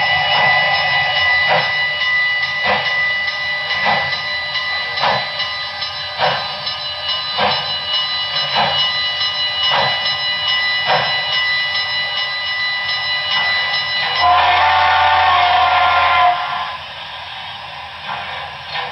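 HO-scale Southern Pacific GS-4 steam locomotive's Broadway Limited Paragon 4 sound decoder: slow, even exhaust chuffs about one a second over a steady high-pitched whine, then a two-second chime whistle sounding several notes at once near the end, after which the sound drops quieter.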